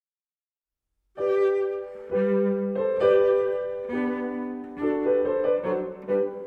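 Silence, then instrumental background music starts about a second in: bowed strings and piano in a classical style, the notes and chords changing about once a second.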